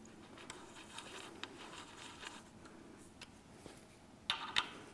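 Faint handling noise and small clicks as an inspection plug is fitted by hand into an engine's aluminium case, then a couple of sharp metal tool clinks near the end.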